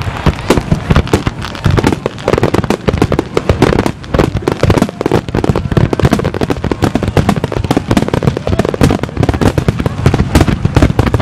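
Fireworks barrage: a rapid, continuous volley of shell bursts going off many times a second and overlapping into one another.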